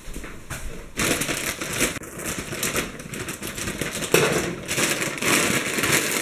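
A plastic bag of frozen fries being torn open and crinkled in the hands, the crackling starting about a second in and going on steadily.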